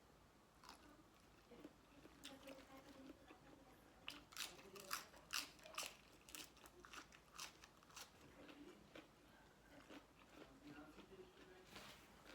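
A person chewing and biting into a mouthful of spicy seafood papaya salad with shrimp and squid, with a string of sharp crunches. The crunches are thickest and loudest about four to six seconds in.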